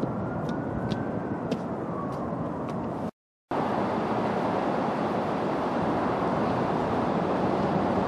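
Steady outdoor city background noise, a distant traffic hum heard from high above the streets. A faint tone rises and falls in the first two seconds, with a few light ticks. The sound drops out to silence for a moment about three seconds in, then the steady hum resumes.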